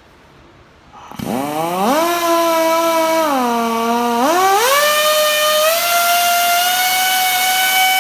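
Electric power tool spinning a Scotch-Brite pad to polish the rust off a brake caliper guide pin. The motor spins up about a second in, drops in speed for a moment as it bears on the work, then climbs again and runs high and steady.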